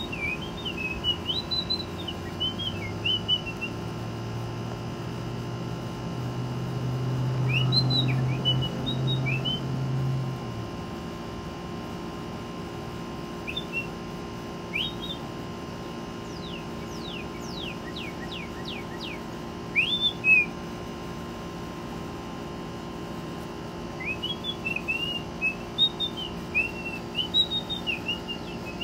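A person whistling short warbling phrases, with a northern cardinal singing runs of rapid, steeply falling whistled notes in between. A low hum swells and fades during the first third.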